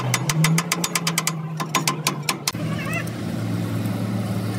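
Rapid, even metal tapping, about eight strikes a second, from hammering at a truck differential's pinion, stopping about two and a half seconds in; a steady low hum runs underneath and carries on.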